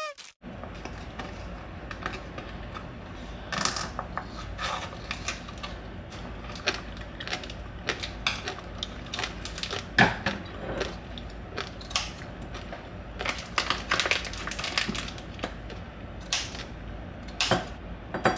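Irregular light clicks and knocks of small objects being handled, over a low steady hum.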